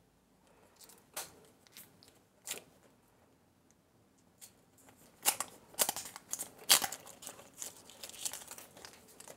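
Hands opening a toy surprise egg: a few sharp clicks, then from about five seconds in a dense run of tearing and crinkling wrapper.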